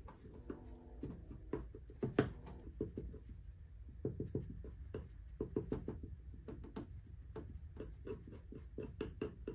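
A screwdriver tip scraping and ticking around a drain hole in a metal cabinet floor, clearing it out: a run of quick, irregular scratches and small clicks, the loudest a little over two seconds in.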